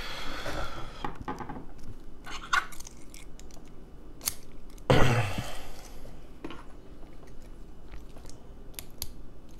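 Small irregular clicks, scrapes and rustles of a pin-tumbler lock cylinder being handled and taken apart by hand. The sharpest burst comes about five seconds in.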